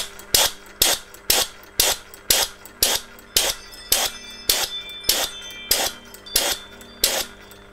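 Philip Duclos 'Odds n Ends' hit-and-miss model engine turning over on compressed air fed through a spark-plug adapter, its piston sealed with a Viton O-ring. A sharp metallic click repeats evenly about twice a second as the flywheel turns.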